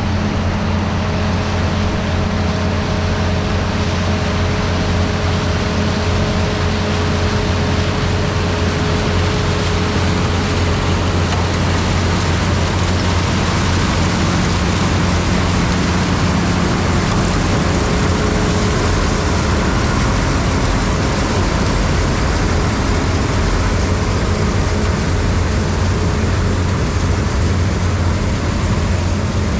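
John Deere 3300 combine running steadily while harvesting corn: a constant engine and threshing-machinery drone at an even level, with faint steady tones that come and go.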